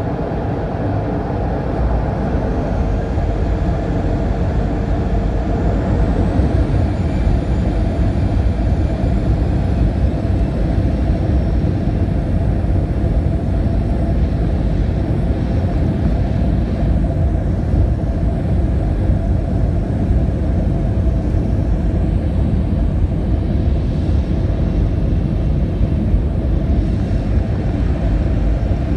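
Heard over the wing inside the cabin of a Boeing 737-300: its CFM56-3B2 turbofan engines running with a steady, heavy low rumble as the airliner rolls on the ground, with a faint high whine rising in pitch a few seconds in.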